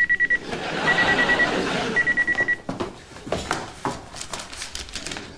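An electronic beeper trills in three short bursts of rapid beeps about a second apart, over a hiss of background noise. Scattered clicks and knocks follow in the second half.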